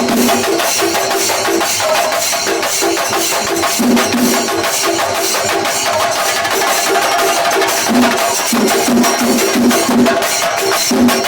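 Singarimelam ensemble playing: chenda drums struck fast and densely with sticks over continuous clashing of ilathalam cymbals. The low drum notes jump between two pitches in a repeating tune-like pattern.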